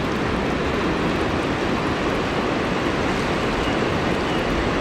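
Mountain river water rushing, a steady, even noise.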